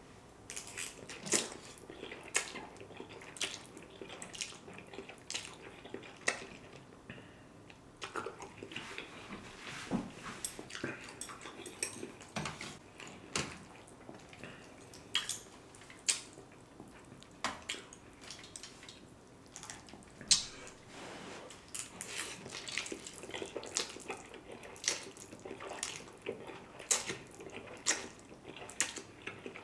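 A person eating spicy noodles close to the microphone, slurping and chewing with wet mouth sounds. Many short, sharp clicks and smacks come at an irregular pace.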